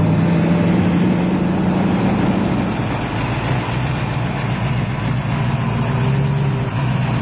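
Car engine running steadily under a steady rushing hiss; its hum drops a little in pitch about two and a half seconds in.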